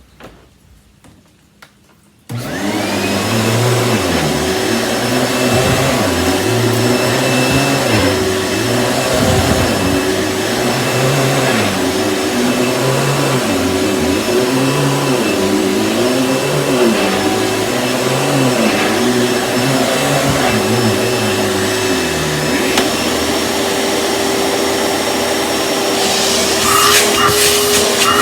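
Panasonic upright vacuum cleaner switched on about two seconds in, its motor whining up to speed and then running steadily. The low part of the sound swells and fades about every two seconds as it is worked back and forth over carpet. Near the end, a run of clicks and rattles joins the steady motor.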